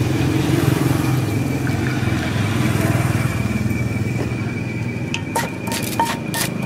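A steady engine drone, and from about five seconds in a quick run of sharp knocks with a short ring: a wooden pestle striking a clay mortar while pounding green papaya salad.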